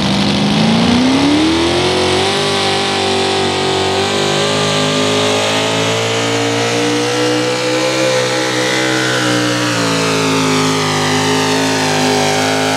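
Pulling vehicle's engine revving up over the first two seconds, then held at high revs, as on a pull run down the track. The pitch dips slightly about ten seconds in.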